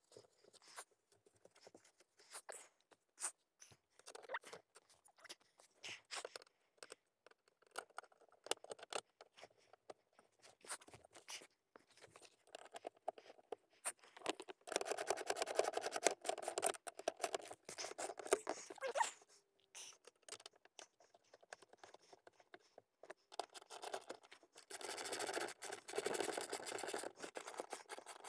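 Rapid clicks, scrapes and rattles of a metal floor-mount base plate and its bolts being handled and fitted, with two longer spells of dense scraping about halfway through and near the end.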